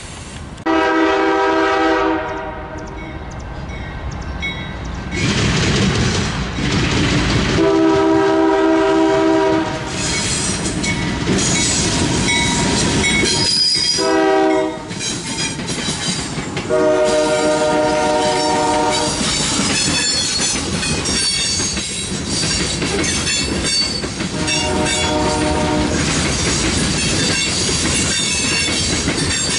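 Freight train's diesel locomotive sounding its multi-chime air horn in a long, long, short, long sequence, the grade-crossing signal, with one more blast near the end. Under it runs the steady loud rumble and rail noise of the passing train.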